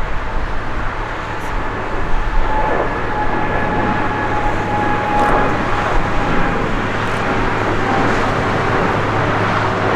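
Jet airliner engines: a steady loud rushing noise with a faint whine that slowly falls in pitch.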